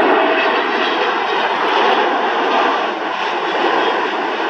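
Jet engines of a Boeing 787 airliner making a steady, loud rushing roar as it flares and touches down on the runway, loudest near the start and easing a little near the end.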